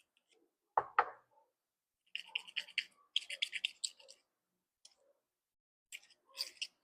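Two sharp knocks about a second in, then bursts of scratching and clicking as a small metal cleaning tool scrapes varnish and gunk out of a Briggs & Stratton lawnmower carburetor.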